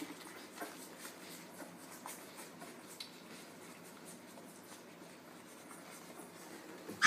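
Nursing puppies suckling at their mother's teats: faint wet clicks, smacking and rustling of fur. Right at the very end comes a sudden loud, sharp sound.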